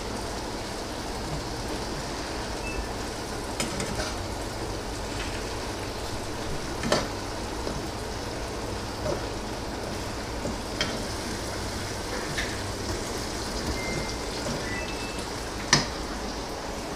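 Fried tilapia and tomato sauce frying in a frying pan, a steady sizzle, with a few short taps of the spatula against the pan, the loudest near the end.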